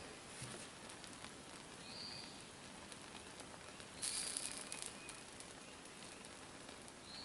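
Faint hissing and crackling of a rubber tire plug burning down against the tire tread, with a louder burst of hiss about four seconds in. Brief high chirps come about every two seconds.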